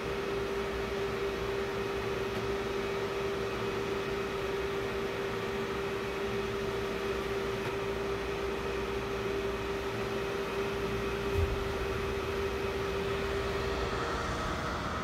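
Digital cinema projector and booth cooling fans running: a steady whirring rush with a steady hum that drops away near the end. A single soft thump about eleven seconds in.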